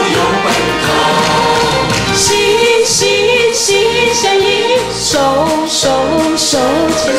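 Backing music of a Chinese pop love-song duet with a steady beat. A wavering melody with vibrato comes in about two seconds in.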